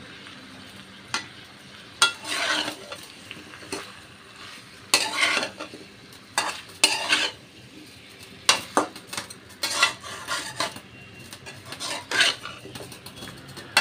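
Metal spatula scraping and stirring cubed papaya and potato with spice paste around a metal kadai, in about a dozen irregular strokes, with low sizzling between them as the vegetables braise in the oil and spices.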